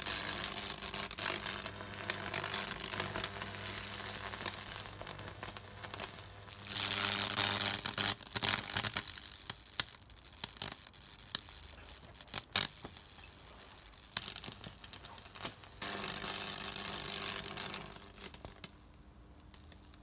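High-voltage arc from a microwave-oven transformer burning through a wet wooden board: a steady mains buzz with crackling and hissing as the wood burns. It stops about eight seconds in, leaving a few sharp pops, then buzzes and crackles again for about two seconds near the end.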